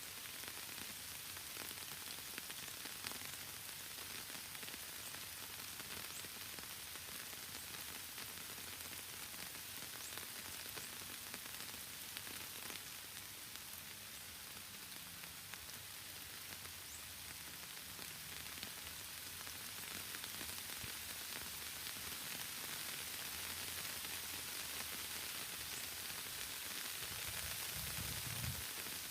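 Steady rain falling: an even hiss with scattered sharp drop ticks, and a brief low rumble near the end.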